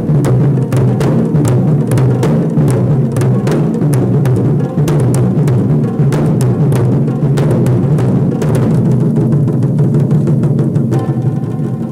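Taiko drums played in a fast, dense stream of deep strikes. About eleven seconds in the beating stops, leaving a fading ring.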